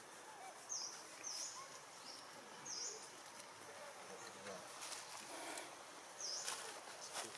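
Faint outdoor ambience among trees: a short high-pitched chirp comes five times, four in the first three seconds and once more near the end, with a few soft rustles and taps in the second half.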